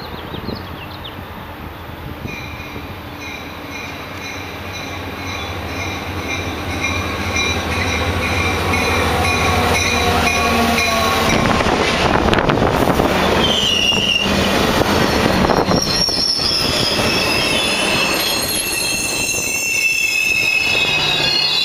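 Caltrain EMD F40PH diesel locomotive approaching with a steady engine drone, getting louder and passing about eleven to twelve seconds in. Its bilevel passenger cars then roll by with high, sustained wheel squeal. No horn is sounded.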